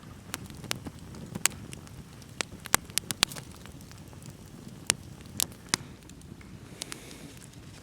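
Campfire crackling, with sharp irregular pops and snaps over a low steady hiss, several close together about three seconds in.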